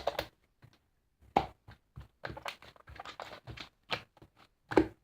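Slime being played with by hand, giving irregular sticky clicks and small pops, several to a second.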